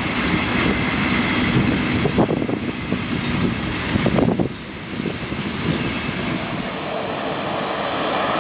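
A train passing on the line, its wheels knocking over the rail joints; the noise drops about halfway through, leaving a steady rushing that slowly grows.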